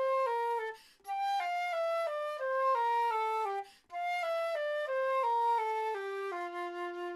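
Flute playing slow slurred one-octave scales, mostly stepping downward note by note in phrases with two short breaths, ending on a long held low note with vibrato.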